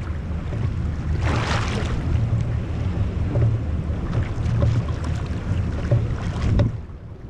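Wind buffeting the microphone on a boat at sea, an uneven low rumble, with water washing along the hull. A louder gust or splash comes about a second in, and the rumble eases off shortly before the end.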